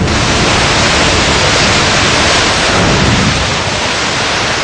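Floodwater rushing in a fast, churning torrent: a loud, steady wash of noise.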